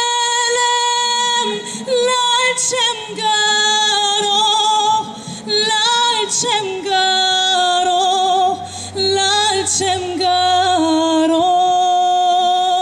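A woman singing a slow melody in long held notes with vibrato, with brief breaks for breath between phrases.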